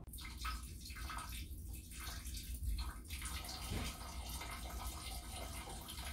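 Faint, steady rush of running water, as from a tap or a filling tub.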